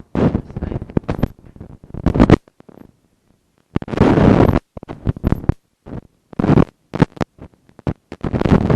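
Loud, irregular rumbling and crackling noise from a faulty camcorder microphone, cutting in and out with short dead-silent gaps, the sign of a loose or disconnected mic connection.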